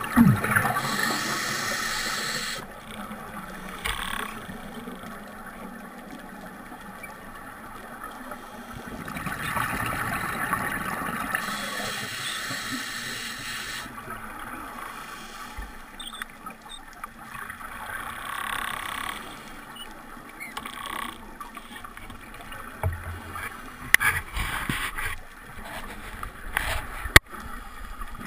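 Scuba diver's regulator breathing underwater: rushes of exhaled bubbles every several seconds with quieter stretches between them, and a sharp click near the end.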